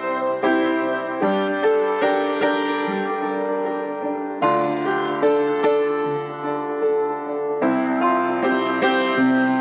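Instrumental background music: a slow melody of struck notes that ring and fade, with new chords coming in about every half second.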